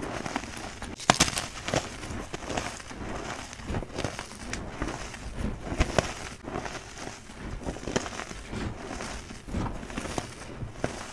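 Hands squeezing and crushing reformed gym chalk: soft, irregular crunching and crackling of the powder and crumbled chunks, with a sharper crack about a second in.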